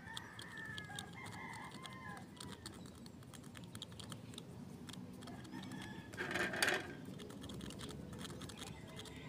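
Chickens calling: a drawn-out wavering call in the first two seconds and a louder, short call about six seconds in. Under them run light, rapid clicks of a needle picking at an eggshell.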